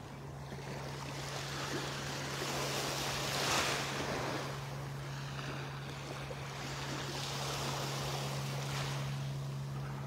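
Gentle surf washing on a sandy shore, an even rushing that swells and ebbs, loudest about three and a half seconds in. A steady low hum runs underneath.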